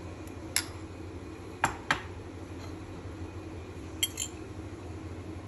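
A metal spoon and fork clinking against ceramic bowls and plates while green chutney and chopped salad are served onto a plate: a single clink under a second in, two about two seconds in, and a quick pair about four seconds in.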